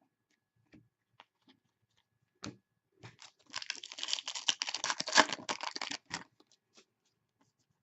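Crinkling and tearing of a trading-card pack wrapper for about three seconds, after a few light taps and ticks of card handling.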